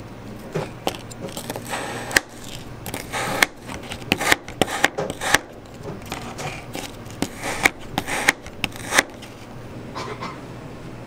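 Kitchen knife chopping mango on a plastic cutting board: irregular sharp knocks that die away about nine seconds in.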